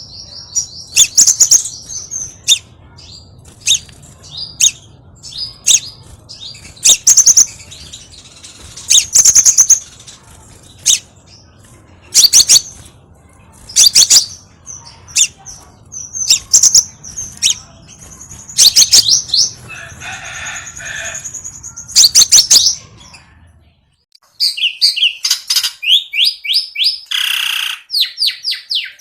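Scarlet minivet calls played as a bird-lure recording: loud, sharp, high-pitched notes in quick strings, repeated over and over. About 24 seconds in, a low background hum cuts out and a new run of rapid notes begins, as at a splice in the recording.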